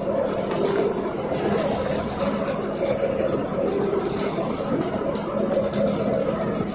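Inside a LiAZ-5280 trolleybus under way: steady running and road noise with a constant hum from the DK-213 traction motor and light rattling of the body.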